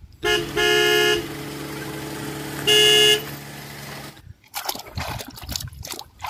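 A vehicle horn honks three times, the first blast short and the last two longer, over a steady drone that stops about four seconds in. After that, water splashes and sloshes as the toy truck is scrubbed by hand in muddy water.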